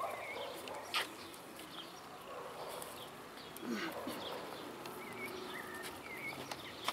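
Outdoor background with scattered short bird chirps, a sharp click about a second in, and a faint voice or animal call a little before the four-second mark.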